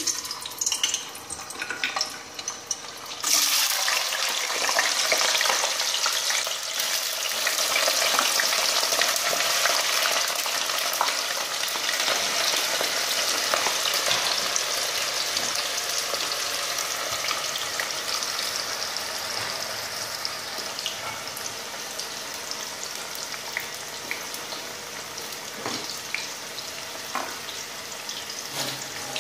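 Potato strips deep-frying in hot oil in a kadai. The first few seconds are quiet with a few small clicks. About three seconds in, the potatoes go in and a loud sizzle starts at once, then settles into a steady bubbling sizzle with scattered pops that slowly grows softer.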